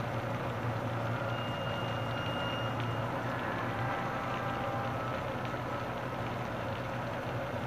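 A horror film's hushed ambient soundtrack: a steady low hum with a few faint, thin, high tones drifting in and out.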